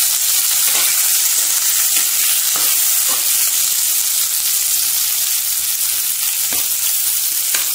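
Onions and crushed garlic sizzling steadily in hot mustard oil in a metal kadai, stirred with a metal spatula that clicks and scrapes against the pan now and then.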